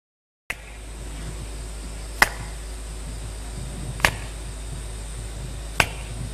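Three sharp percussive strikes, evenly spaced a little under two seconds apart, over a steady low hum that starts abruptly about half a second in.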